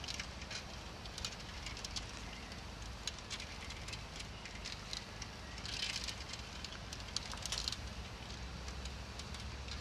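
Outdoor background noise: a steady low rumble with scattered light clicks and crackles, which grow denser about six seconds in and again near seven and a half seconds.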